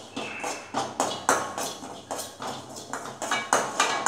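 Perforated metal ladle scraping and knocking against an aluminium kadai while stirring carom seeds as they dry-roast, about three strokes a second, each with a short metallic ring.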